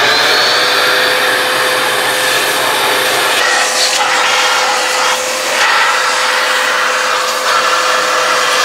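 Shop vacuum switched on, its whine rising as the motor comes up to speed, then running steadily as the hose nozzle sucks sawdust off a miter saw. The rush of air shifts now and then as the nozzle moves over different parts of the saw.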